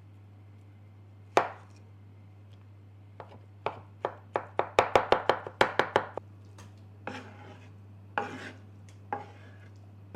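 Kitchen knife chopping on a cutting board. There is a single chop about a second in, then a quick run of about a dozen chops around the middle at roughly five a second, and a few more spaced chops near the end, over a low steady hum.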